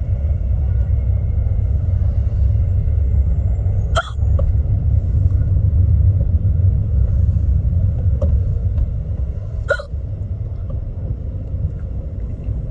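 A woman hiccuping, two sharp, clear hiccups about four seconds in and near ten seconds in, with a few fainter ones between, over the steady low rumble of road noise inside a moving car.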